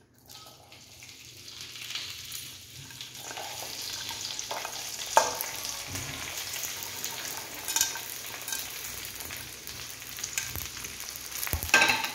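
Cut okra pieces being dropped into hot oil in a stainless steel kadai, frying with a steady sizzle that builds in the first two seconds as more pieces go in. A few sharp louder pops come through it, the loudest about five seconds in and near the end.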